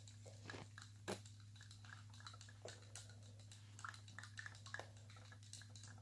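Near silence: a steady low hum with scattered faint small clicks, one sharper click about a second in.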